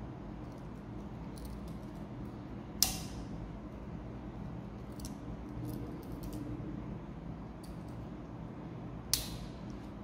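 Tools of a Victorinox SwissChamp Swiss Army knife snapping into place against their backsprings: two sharp metallic clicks, about three seconds in and near the end, with lighter ticks of the steel tools being handled between them, over a steady low hum.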